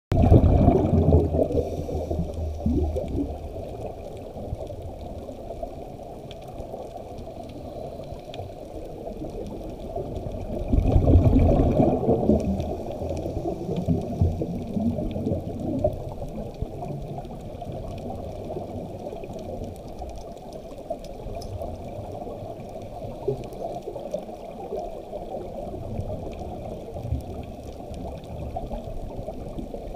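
Muffled underwater sound heard through a camera housing: a steady dull rush, with bubbling surges of a scuba diver's exhaled regulator bubbles, loudest at the start and again about eleven seconds in.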